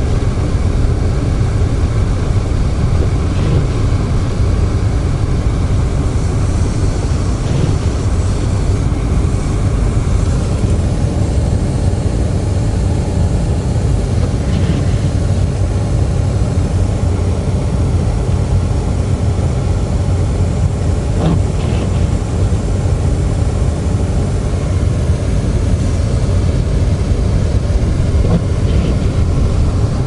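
Car cabin noise while driving on snow-covered roads: a steady low rumble of the engine and tyres, heard from inside the car.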